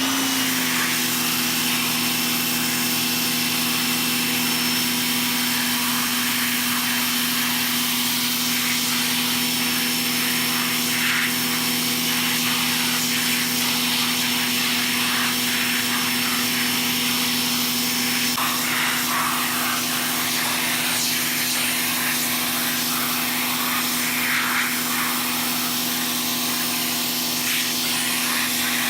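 Pressure washer running steadily, a pitched motor-and-pump hum under the hiss of the water spray, rinsing acid deck wash off a wooden tabletop. Its tone shifts slightly about two-thirds of the way through.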